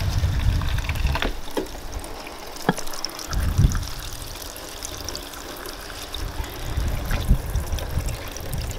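Garden-hose water running through a Bunch O Balloons filler and trickling into a cooler of water as the bundle of water balloons fills, with some low rumble on the microphone at times.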